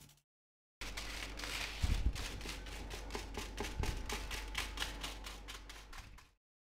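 Hands rubbing set chocolate chips loose from crinkled aluminium foil: a quiet, rapid crackle of foil with small clicks of the chips. The sound drops out to silence briefly near the start and again near the end.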